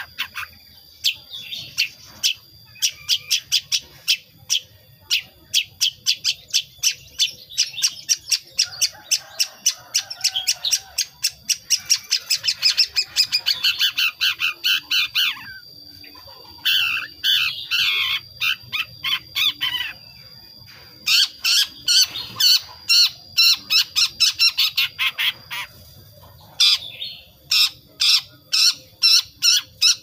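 Young long-tailed shrike (cendet), about five months old, giving fast runs of short, harsh chattering notes (ngriwik) in its natural, untutored voice while it is still learning to sing. The runs break off briefly about halfway through, again about two-thirds through, and once more near the end.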